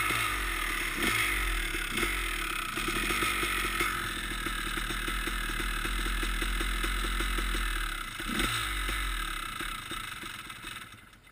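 Two-stroke dirt bikes idling, with short throttle blips about a second in, about two seconds in and again after about eight seconds, the revs falling back each time. The engine sound fades away near the end.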